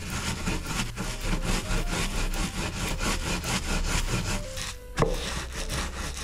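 Wooden rolling pin rolled back and forth over cookies sealed in a plastic bag on a wooden board, crushing them into crumbs with a dense crackling crunch and the crinkle of the bag. A single sharp knock comes about five seconds in.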